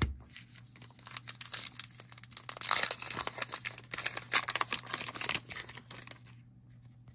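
Baseball card pack wrapper being torn open and crinkled by hand: a dense run of crackling, loudest in the middle, that stops about six seconds in.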